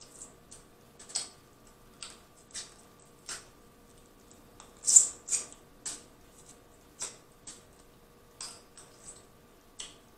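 Close-miked eating of boiled crawfish: irregular wet mouth smacks and sucking sounds as shells and fingers go to the lips, about a dozen short clicks, the loudest about five seconds in.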